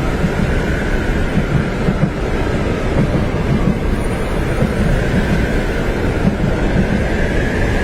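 Steady low rumble of a train running on its tracks, heard from inside a carriage, with a faint wavering higher hum over it.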